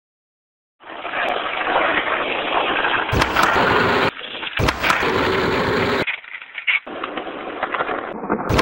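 Skateboard wheels rolling over concrete and asphalt, starting after about a second of silence, with two sharp board impacts about three seconds in and a second and a half later, and another near the end.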